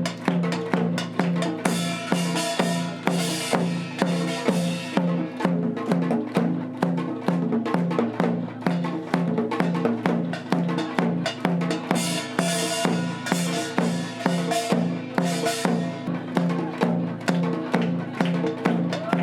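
Percussion-led music with a steady beat of about two drum strikes a second over a held low tone, with bursts of bright, crashing sound now and then.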